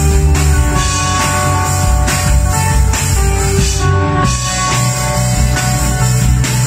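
Live rock band playing an original song: electric guitar, acoustic guitar and electric bass over a drum kit beat, loud and steady.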